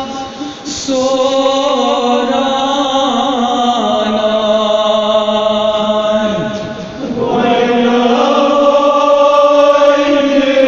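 Kashmiri nohay, a Muharram lament, chanted without instruments in long held, slowly gliding vocal lines. Two brief pauses break it, just after the start and about seven seconds in.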